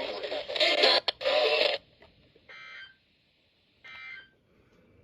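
Noisy, static-laden radio audio cuts off about two seconds in, followed by two short bursts of warbling digital data tones from a NOAA weather radio, typical of the SAME alert header sent before a warning.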